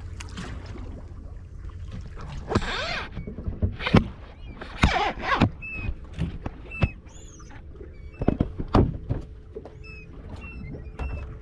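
Water splashing and slapping against a small boat's hull at irregular moments over a steady low rumble. A few short, high chirps come in the second half, and a faint steady hum joins about eight seconds in.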